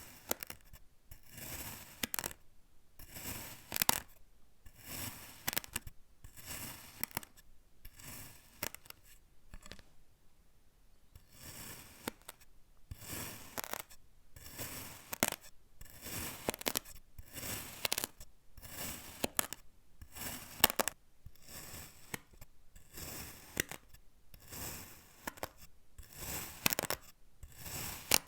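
Kinetic sand being cut, crunchy slicing strokes about one a second, with a short pause about ten seconds in.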